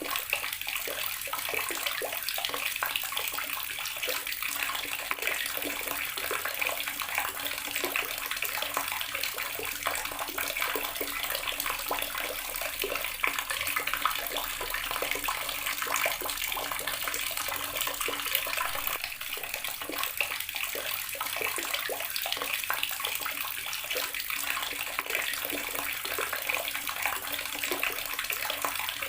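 Garden water tap running steadily, its stream splashing.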